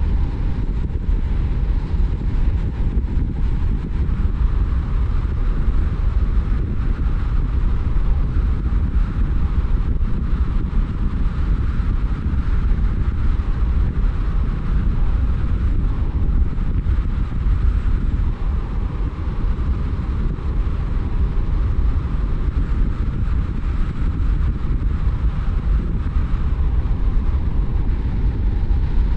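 A car driving along a road: a steady low rumble of engine and tyre noise that holds even throughout.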